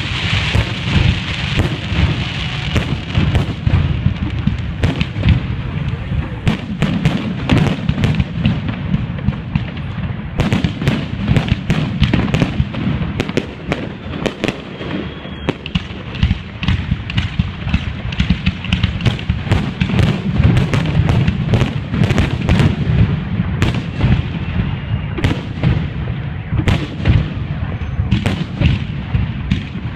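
Fireworks display: a dense, continuous run of shell bursts and crackling bangs over a steady low rumble, with a couple of brief faint whistles.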